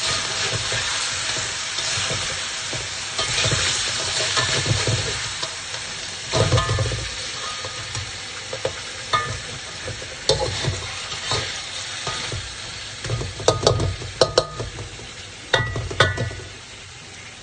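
Crab pieces in chilli sauce sizzling in a metal wok as a slotted spatula stirs and scrapes through them, with sharp clinks of the spatula against the wok. The sizzle grows quieter toward the end.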